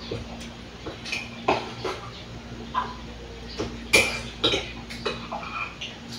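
A spoon clinking against a mug, with scattered light clinks and knocks, some briefly ringing, the loudest about four seconds in. A steady low hum runs underneath.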